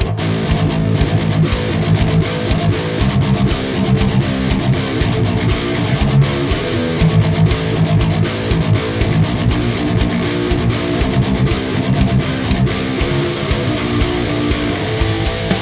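Industrial metal instrumental passage: heavily distorted electric guitars playing chugging riffs over a driving drum beat.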